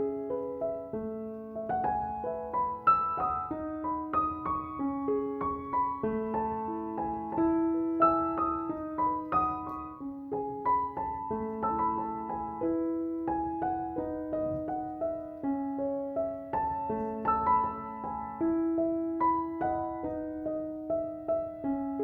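Gentle solo piano background music, a slow melody of single notes and broken chords.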